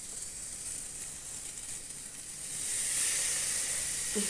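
Masala-coated chicken sizzling in a hot pan. The sizzle swells and turns hissier about two-thirds of the way in as lime juice is squeezed onto the pan.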